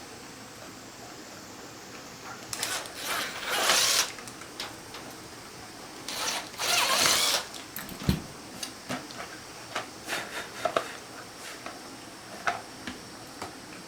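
Hand work on the sprayer's parts: several brief scraping, rubbing swishes and a scattering of small clicks and knocks, with one low thump about eight seconds in.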